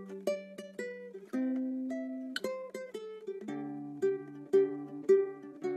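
Background music: a light instrumental on plucked strings, with notes picked in a repeating pattern over held bass notes and chord changes about every second.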